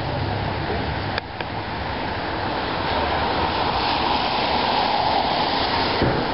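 Steady rushing street noise, traffic and tyres on wet pavement, getting a little louder about three seconds in. A brief click about a second in.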